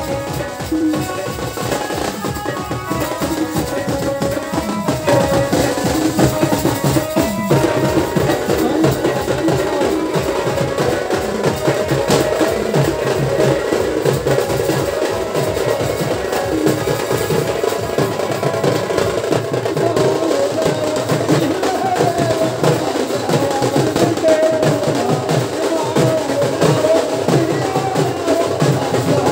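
Procession drums, double-headed barrel drums beaten with sticks in a fast, continuous rhythm, with a crowd's voices over them.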